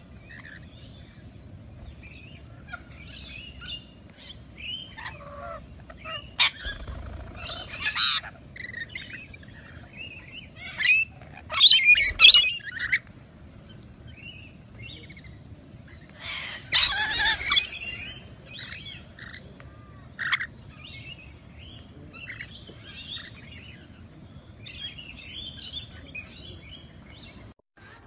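Rainbow lorikeets chattering and screeching: many short, high calls, with the loudest harsh screeches coming in bursts a little before halfway through and again a few seconds later.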